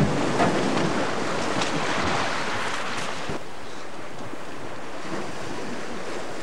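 Wind buffeting the microphone over the steady wash of sea surf, with a thump at the very start; the noise is louder for the first three seconds or so, then settles lower and steadier.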